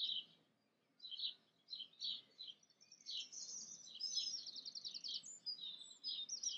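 Dawn chorus: several songbirds singing at once, overlapping chirps and short song phrases, with a rapid trill of evenly repeated notes about halfway through.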